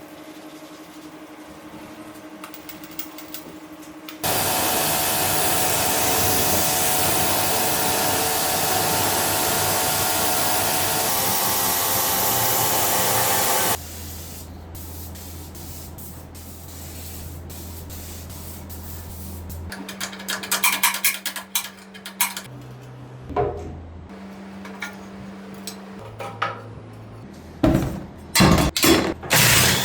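Workshop tool sounds in a run of short clips: a loud, even hiss for about nine seconds, then a low steady hum, then a series of clicks and short tool noises, loudest near the end.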